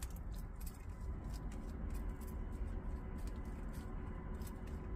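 Soft, irregular scratching and small clicks as metal tweezers pick through a succulent's root ball, loosening gritty potting soil and pebbles so that grains trickle and tick down.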